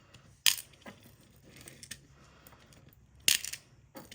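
Loose beads clattering as they are tossed into a bead tray: two sharp clatters about three seconds apart, with a few faint clicks between them.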